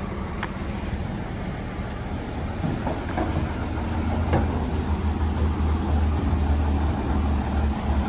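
Semi truck's diesel engine idling, a steady low rumble that grows a little louder over a few seconds, with a few faint clicks over it.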